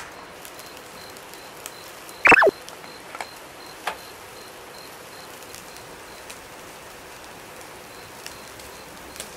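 Beef sizzling on a wire grill grate over charcoal: a steady hiss with a few scattered crackling pops. About two seconds in, a short, loud squeak falls quickly in pitch.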